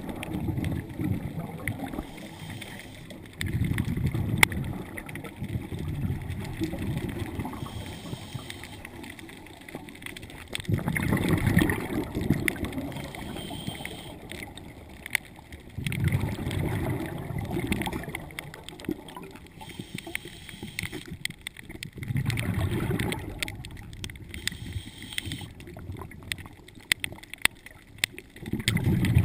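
Scuba diver's exhaled bubbles from the regulator, bubbling in bursts about every five or six seconds with the breathing, heard through an underwater camera housing.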